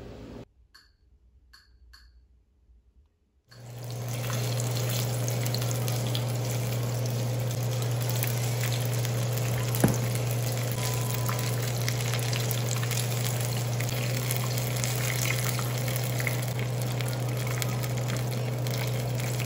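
Hot oil sizzling and crackling steadily as battered shrimp tempura deep-fries in a small saucepan on a gas burner, with a steady low hum underneath. It starts after about three seconds of near silence, and there is one brief click about ten seconds in.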